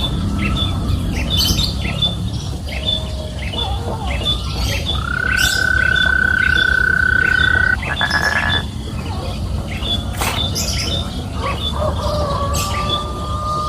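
Birdlike chirping: short chirps repeating about twice a second, with a long steady whistled note about five seconds in that breaks into a brief buzzy rattle, and a weaker whistle near the end, over a steady low rumble.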